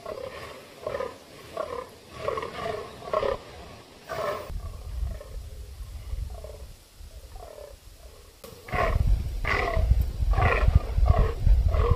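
Fallow bucks in the rut croaking: a steady series of short, pitched groans, about two a second. This is the buck's rutting call for dominance. A low rumble comes in about four seconds in and becomes the loudest sound in the last third.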